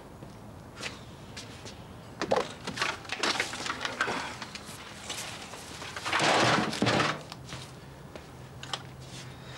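Knocks, clatter and rustling of things being handled, with a louder rushing burst of noise lasting about a second, about six seconds in.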